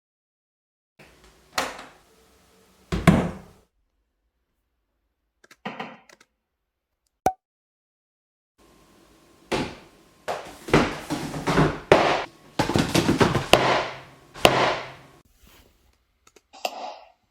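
Household objects being struck and knocked as improvised sound effects. First come a few separate thuds and knocks with gaps between them, then, about halfway through, a dense run of many rapid hits lasting several seconds.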